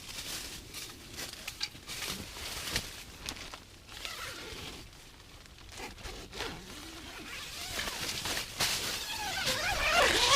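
Rustling and scraping handling noises with many small clicks, busier and louder near the end.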